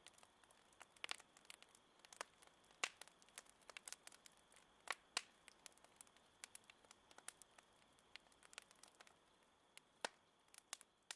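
Near silence: a faint hiss with scattered, irregular small clicks and crackles.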